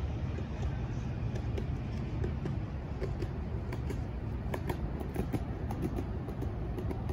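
Steady low outdoor rumble with scattered small clicks, more of them in the second half.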